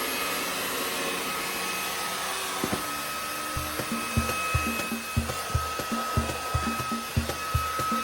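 Vacuum cleaner running steadily with a high whine over its airflow noise. A low, regular beat of music joins about three and a half seconds in.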